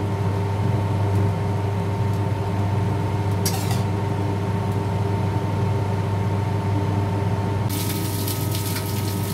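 Steady mechanical hum of a kitchen cooktop or exhaust fan, with water boiling in a steel stovetop steamer. About eight seconds in, a crackling sizzle joins it.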